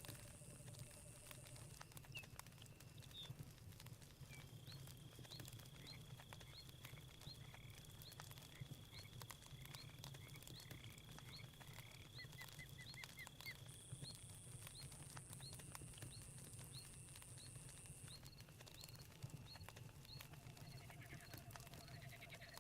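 Faint night-forest ambience: campfire crackling with a low rumble, under crickets and other insects trilling steadily at a high pitch. Short chirping calls repeat about once or twice a second through the middle, joined by a faster run of chirps near the middle.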